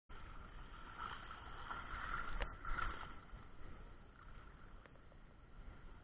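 Shallow stream water splashing as a mountain bike is walked through it. A few sharp knocks from the bike come two to three seconds in and again near the end.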